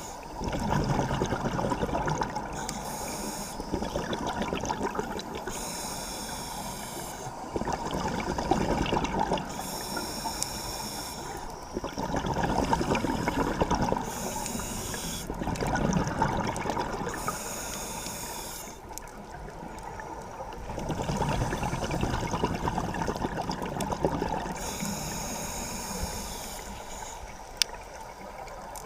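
Scuba diver breathing through a regulator underwater: a hiss on each breath in and a gush of exhaled bubbles on each breath out, repeating every four to five seconds.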